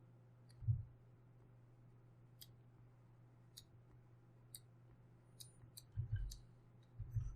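Scattered light clicks of a computer input device at a desk, about eight spread across several seconds, with three dull low thumps: one near the start and two close together near the end. A steady low electrical hum runs underneath.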